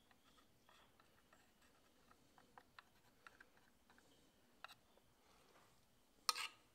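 Faint, scattered light ticks and scrapes of a thin metal pick dabbing ASA-and-acetone slurry out of a small metal tin and into a crack in a 3D-printed part. Near the end comes one brief, louder clatter.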